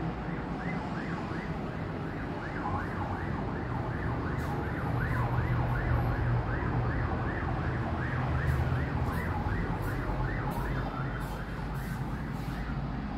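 An emergency vehicle siren in a fast yelp, its pitch rising and falling about three times a second, over a low traffic rumble.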